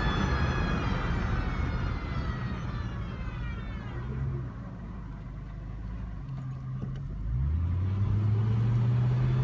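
2002 Jeep Grand Cherokee's intermittent drive whine while moving: a high whine with overtones that falls in pitch as the vehicle slows and fades out about four seconds in. A little after seven seconds a low engine note rises as it pulls away again.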